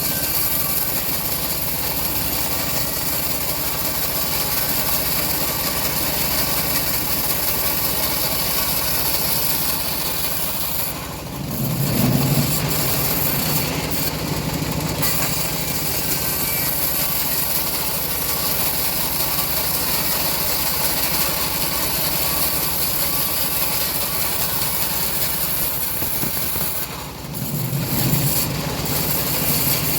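Engine-driven homemade bandsaw mill running steadily while sawing a teak log. Twice, about eleven seconds in and near the end, the high-pitched noise drops for a moment and a low rumble swells before it settles back.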